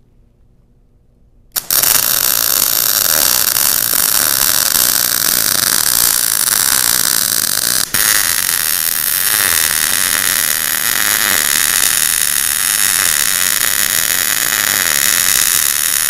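MIG (GMAW) welding arc burning steadily on a vertical-up weave pass along a T-joint. It strikes suddenly about a second and a half in and runs on with a steady hiss and crackle, broken only by a momentary dip near the middle.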